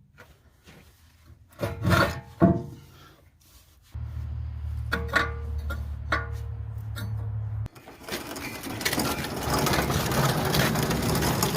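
Welding on steel: a few metal knocks, then a steady low hum for a few seconds, then a dense, continuous crackle of an arc laying a bead over the last four seconds.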